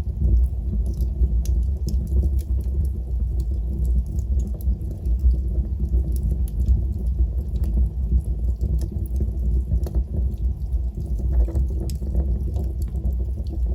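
Wood fire burning in a fireplace: a steady low rumble of flames with many scattered small crackles and pops.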